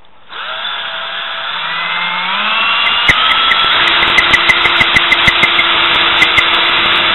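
Cordless drill starting up and boring through the wall of a PVC pipe. The motor's pitch climbs over the first couple of seconds, then holds steady while the bit cuts the plastic with irregular sharp clicks.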